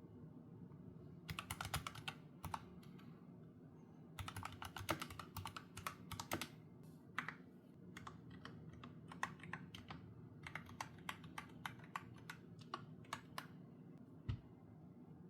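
Typing on a custom mechanical keyboard with Kailh Super Speed Red linear switches and PBT keycaps. There is a quick run of keystrokes about a second in and a denser run around four seconds in, then slower scattered keypresses, and one last single stroke near the end.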